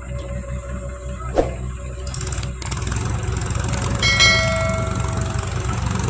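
Diesel engine of heavy loading machinery running steadily. A sharp knock comes early, and about four seconds in a metal clang rings for about a second.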